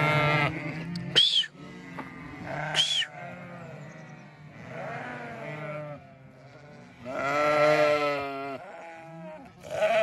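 A flock of sheep bleating, several calls overlapping, the longest and loudest a bit past the middle, as the hungry flock waits to be fed. Two short high-pitched calls come about one and three seconds in.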